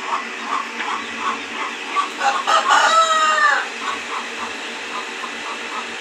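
A rooster crows once, about two seconds in, over a run of short, evenly spaced bird peeps, two to three a second.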